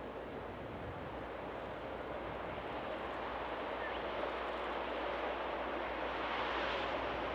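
V/Line N-class diesel locomotive hauling a passenger train as it approaches, a steady rumble growing gradually louder.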